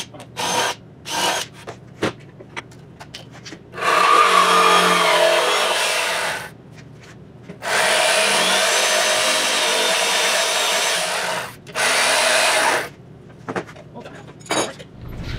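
Jigsaw cutting through laminated wood boards in three runs, the first starting about four seconds in, the longest lasting about four seconds, with scattered knocks of handling the board before and after.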